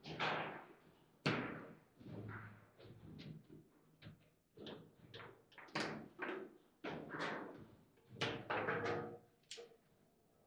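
Table football (foosball) game in play: a quick, irregular run of sharp knocks and clacks as the ball is struck by the plastic figures and bangs against the table, with the louder slams scattered through.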